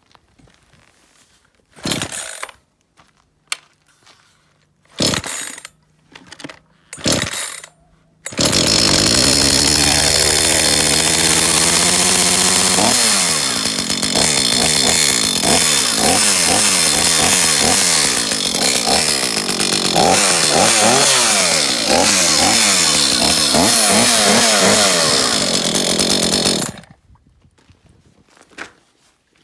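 Makita petrol chainsaw being started: several short bursts as the starter cord is pulled, then the two-stroke engine catches about eight seconds in. It runs steadily, is then revved up and down repeatedly, and stops abruptly near the end.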